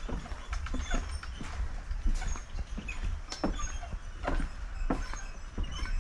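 Footsteps on the wooden plank deck of a suspension footbridge, sharp knocks about two a second over a steady low rumble.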